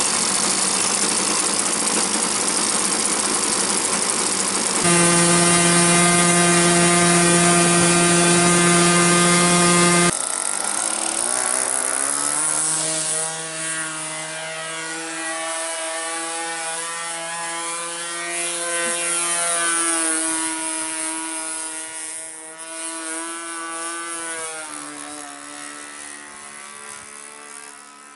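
An Evolution 15cc two-stroke gasoline engine turning a 13x6 propeller on an RC model airplane. It runs rough and noisy at first, then holds a steady high-pitched full-throttle note from about five to ten seconds in. After an abrupt change about ten seconds in, its drone wavers up and down in pitch as the plane climbs and flies off, fading toward the end.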